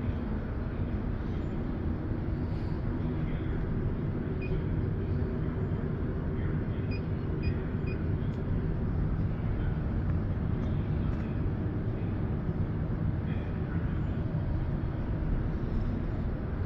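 Steady low rumble of indoor airport terminal background noise, with a few faint short beeps partway through.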